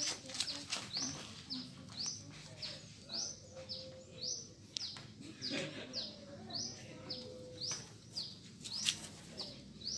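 A bird chirping over and over: a short, high, rising chirp about twice a second, with a few faint knocks.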